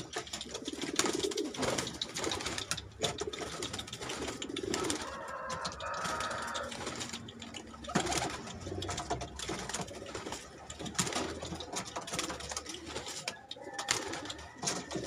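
Domestic pigeons cooing, with repeated quick flurries of wing flapping as birds beat their wings in hand and take off close by.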